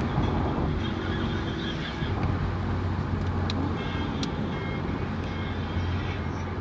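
Steady running noise of a moving road vehicle, with a low constant hum and road noise.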